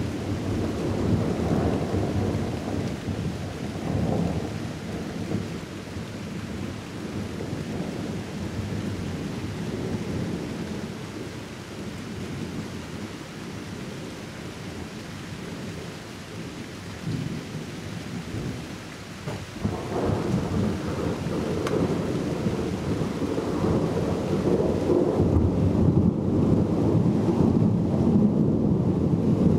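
Rolling thunder from a thunderstorm, rumbling continuously. It eases off through the middle, then swells up suddenly about two-thirds of the way in and grows to its loudest near the end.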